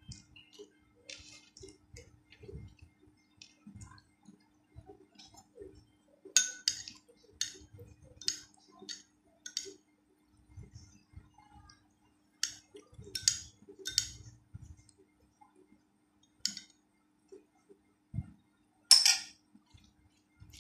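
Eating rice and curry by hand: soft squishing of fingers mixing rice on a china plate, with chewing, and a metal spoon clinking on a glass bowl and china plates. The clinks come in runs, about two a second from about six seconds in and again a little later, with the loudest single clink near the end.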